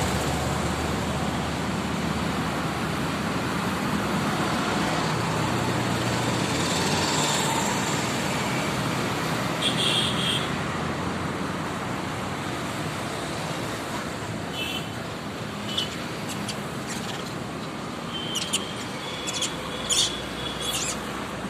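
Steady road traffic noise, with a few short, high-pitched chirps or squeaks about halfway through and several more near the end.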